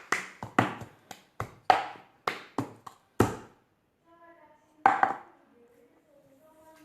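A run of sharp taps or knocks on something hard, about ten in three seconds at an uneven pace, then a faint pitched tone and one more knock.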